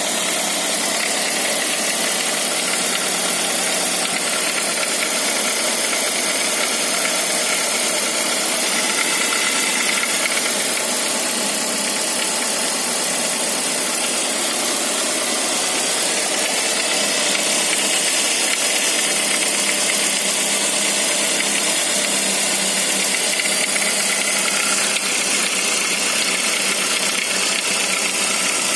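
Saab 9-5 engine idling steadily from a cold start, making the strange noise that shows when it is cold.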